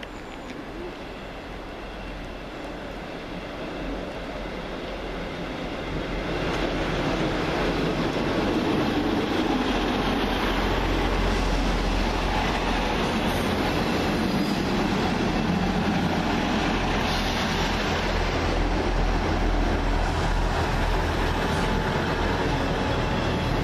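Two coupled ScotRail Class 158 diesel multiple units on the move, with underfloor diesel engines running and wheels on the rails. It grows louder over the first several seconds and then holds steady.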